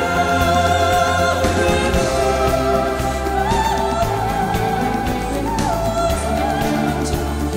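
Background music with a singing voice holding long wavering notes over a steady bass; the melody steps up a little after three seconds in and back down past five seconds.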